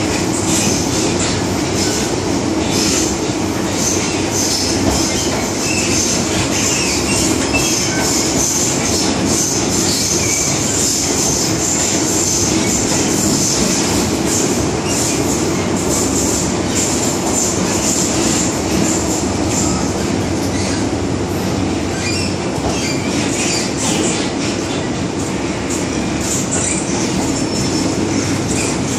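MTR M-Train electric multiple unit heard from inside the car while running along the track: a steady rumble of wheels on rail with a high-pitched wheel squeal that is strongest through the first two-thirds and eases toward the end.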